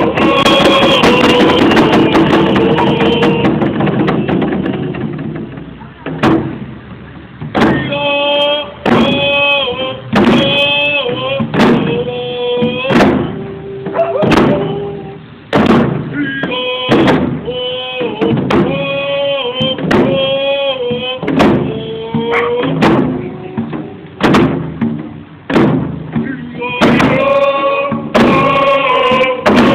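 Group of men singing a Native American song in unison with frame hand drums. The opening seconds are held sung notes. About six seconds in, the drums come in with single strokes a little over a second apart under the voices.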